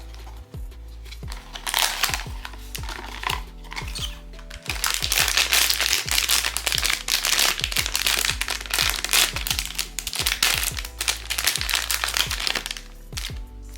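Plastic packaging crinkling and crackling as it is handled and opened, quiet at first and then continuous and loud from about five seconds in until near the end. Background music with a steady beat plays throughout.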